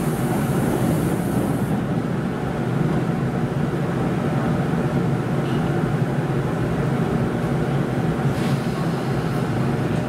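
811 series electric train standing at the platform, its onboard equipment running with a steady low hum. A short hiss runs into the first two seconds, and a fainter one comes about eight seconds in.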